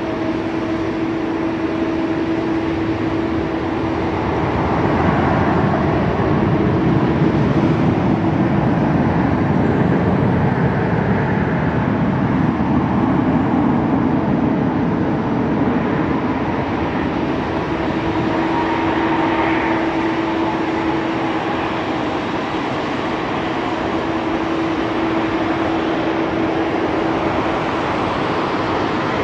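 Jet engines of a Boeing 737 airliner running as it rolls out after landing and taxis off the runway. A steady rumble with a constant hum, louder for about ten seconds starting around five seconds in.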